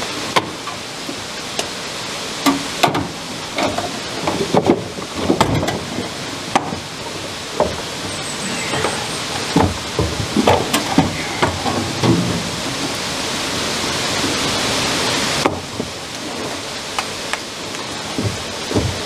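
Steady rushing water from the mill stream, with scattered knocks and clanks as welding cables and a welder are handled on the water wheel's walkway. A louder hiss builds in the middle and cuts off suddenly about fifteen seconds in.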